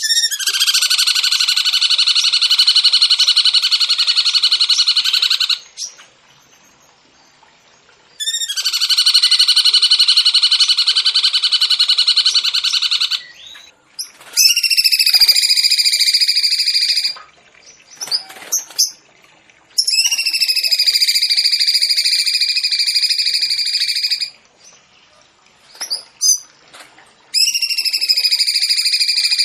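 A songbird singing long, rapid trills, each held for three to five seconds with short pauses between. The first two phrases are dense, rattling trills; the later three are higher, ringing trills that fall slightly in pitch.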